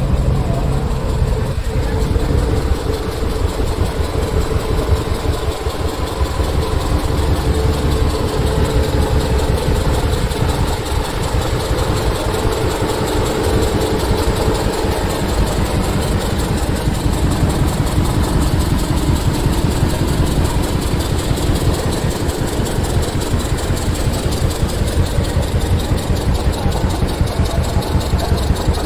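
Diesel engine of a large truck running steadily at idle.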